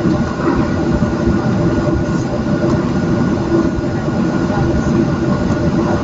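Steady cabin rumble of a Boeing 737-700 rolling slowly on the ground, its CFM56 jet engines running with a constant hum and the wheels rumbling over the pavement.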